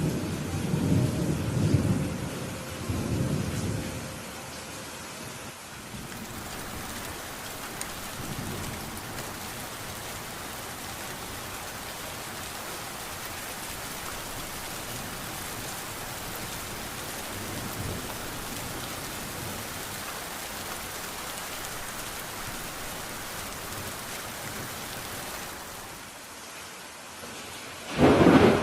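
Steady rain with thunder: a long rumble of thunder in the first few seconds, fainter rolls later, and a loud, sharper thunderclap near the end.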